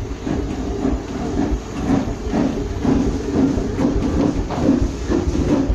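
Steam locomotive No. 504 standing at rest, heard up close: uneven mechanical pulsing with some hiss over a low rumble.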